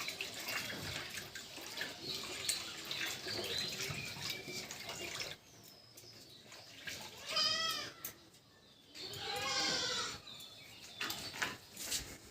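Two high-pitched bleating calls from a farm animal, the first about seven seconds in and the second about two seconds later.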